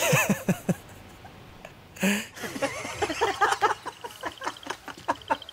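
A man gagging and retching, a sudden heave about two seconds in followed by many short choked heaves, brought on by his strong phobia of frogs. A high, steady ticking trill sounds behind it in the second half.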